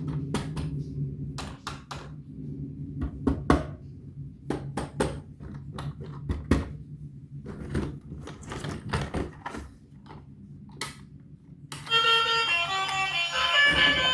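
Irregular clicks and knocks of objects being handled, over a low steady hum. Music with a melody starts near the end.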